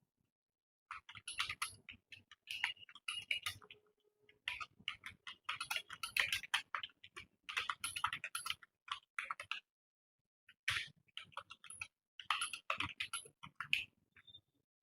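Computer keyboard being typed on fast in a typing-speed test: runs of rapid key clicks, pausing briefly about a second in and again about ten seconds in.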